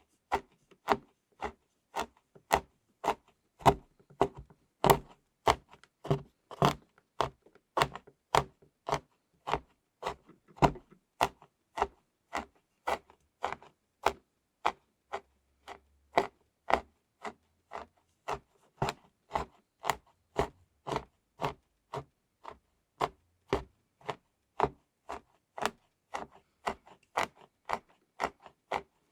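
Knife chopping chocolate into flakes on a board, a steady run of crisp strokes at about two a second.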